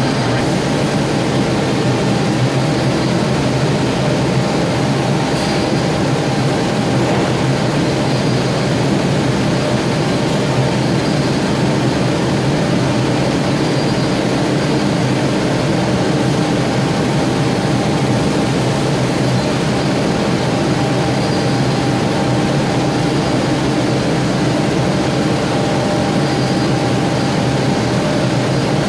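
Steady machinery drone from a CUT 70 panel beam saw and its dust extraction running without cutting, unchanging throughout.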